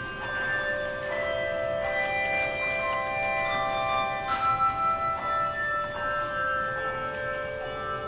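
Brass handbells played by a handbell choir: struck bells ring out in overlapping chords, new notes sounding every second or so, with the loudest strokes about four seconds in.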